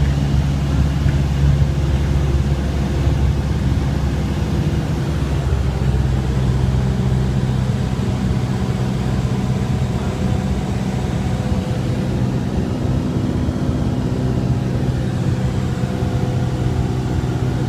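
Engine and propeller drone of a Cessna 172R, heard from inside the cabin: the four-cylinder Lycoming running steadily on the landing approach, its tone shifting a little about five seconds in.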